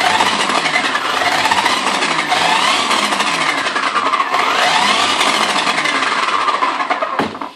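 HPI Baja 5B Flux brushless motor and drivetrain running forward, the whine rising and falling in pitch with the throttle, with a clicking through it that the owner thinks is not right. It cuts off suddenly near the end.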